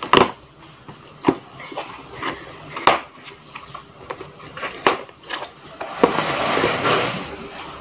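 A delivered parcel being unwrapped by hand: the packaging crackles and crinkles in a string of sharp snaps, then gives a longer run of rustling about six seconds in.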